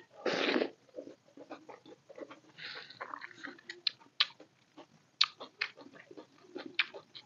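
Close-miked chewing of a hand-fed mouthful of chicken biryani, with wet lip smacks and sharp mouth clicks. A loud noisy burst of mouth sound comes as the handful goes in, just after the start.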